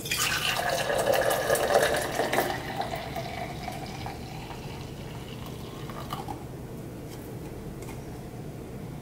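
Hot coffee poured from a paper cup into a stainless-steel insulated travel tumbler. It splashes loudest in the first two seconds or so, then goes on as a softer trickle whose pitch rises as the tumbler fills, and stops about six seconds in.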